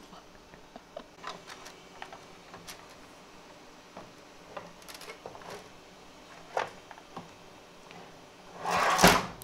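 Scattered light plastic clicks and knocks as a 3D-printer filament spool is handled and turned on its spool holder, with one louder half-second clatter near the end.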